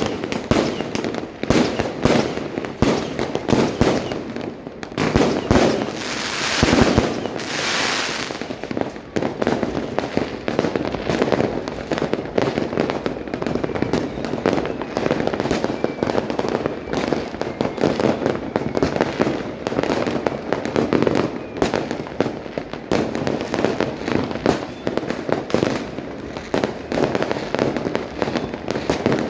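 A dense, unbroken barrage of fireworks and firecrackers going off, many bangs overlapping one another, with a spell of hissing about six to eight seconds in.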